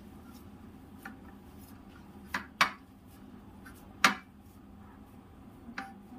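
A few sharp clinks against a white plate while gulab jamun dough is kneaded and pressed by hand on it, the loudest about two and a half and four seconds in, over a steady low hum.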